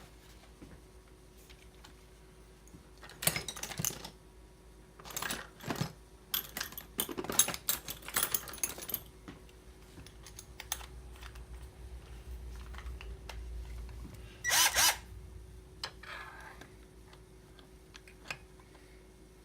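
Small metal chainsaw parts and hand tools being handled, clinking and rattling in several short bursts, busiest between about six and nine seconds in, with a brief loud clatter near the end.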